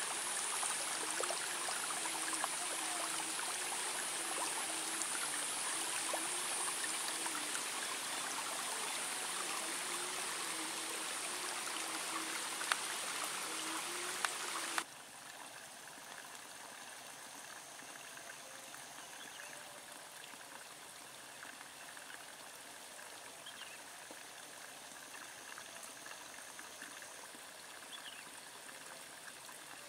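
Running stream water trickling steadily, with a steady high-pitched whine over it. About halfway through, the sound cuts off abruptly and changes to a quieter, softer trickle with a few faint chirps.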